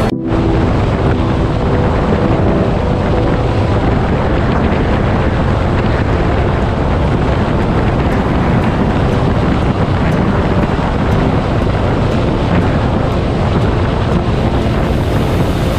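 Steady wind noise rushing over the microphone of a moving motorcycle, with engine and road noise underneath.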